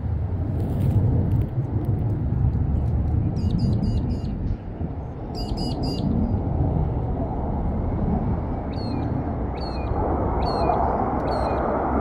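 Distant rumble of a formation of four military jets flying high overhead, growing louder near the end. A bird's short chirps repeat over it, about one a second toward the end.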